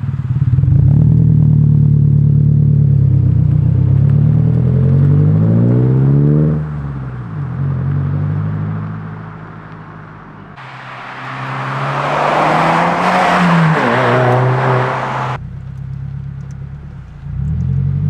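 2022 Subaru WRX's turbocharged 2.4-litre flat-four exhaust through an ETS axle-back muffler delete with resonators, accelerating away with the engine note rising for about six seconds, then dropping and fading. After a sudden cut the car goes by again under power, with tyre hiss on wet pavement and an engine note that rises, then falls.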